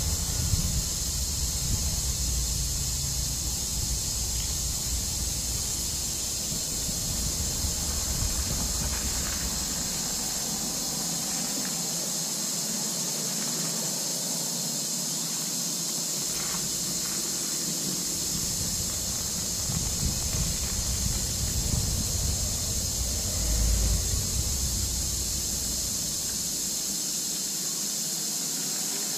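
A steady high-pitched hiss, with low rumbles of wind buffeting the microphone now and then, loudest near the start and again a few seconds before the end.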